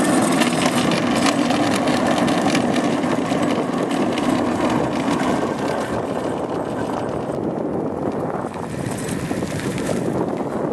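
Homemade go-kart driving on asphalt: a steady rumble from its drive and wheels with a constant rattling clatter, easing slightly after about six seconds.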